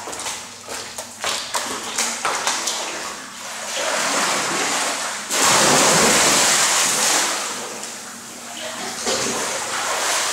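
A person plunging into an indoor swimming pool: a sudden loud splash about five seconds in, water churning as she swims, then fading to sloshing as she stands up in the water. A few light knocks come before it.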